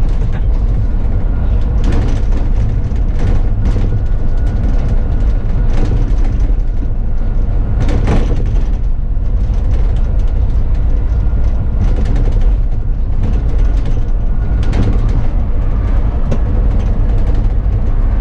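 Bus driving along, heard from the driver's seat: a steady, heavy low rumble of engine and road, with frequent rattles and knocks from the bodywork.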